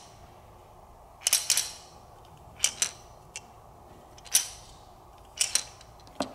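Hard plastic toy ketchup and mayonnaise bottles clicking as they are handled, a handful of sharp plastic clicks, several in quick pairs, about every second or so.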